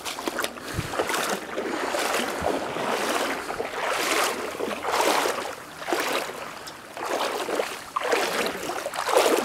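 Footsteps at a walking pace, about one step a second, each step a swell of noisy rustle.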